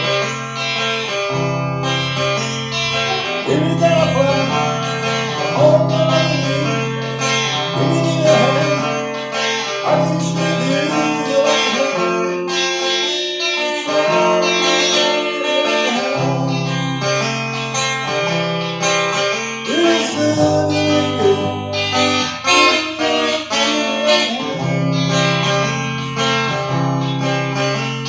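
Guitar music: plucked and strummed guitar over a bass line that moves every second or two.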